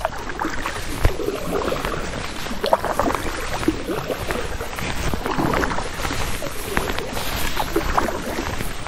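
A paddle dipping into river water and splashing, with many small irregular splashes and drips over a steady watery rush.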